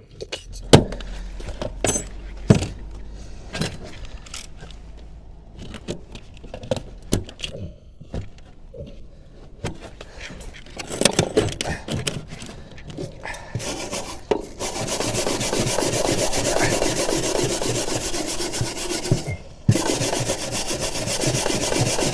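Scraping and scrubbing on an old zinc gutter to clear off black sealant: scattered scrapes and knocks at first, then about two-thirds in a steady, fast rasping scrub that breaks off briefly and resumes.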